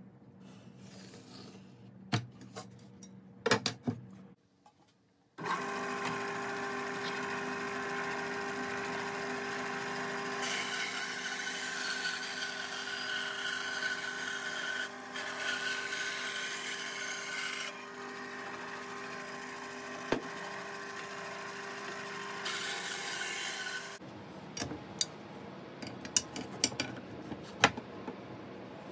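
Electric scroll saw running steadily while cutting a pine board, for about eighteen seconds from a few seconds in. Before and after it, sharp taps and scratches of a metal ruler and pencil on the wood.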